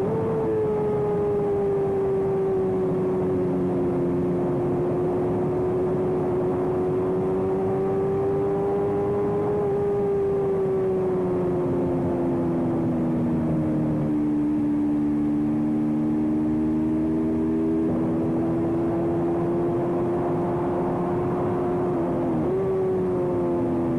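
Small-displacement racing motorcycle engine held at high revs under the onboard camera, with a rushing noise beneath it. The engine note sags and climbs slowly over several seconds, and about three-quarters of a second before the end it breaks and jumps in pitch, as at a quick gear change.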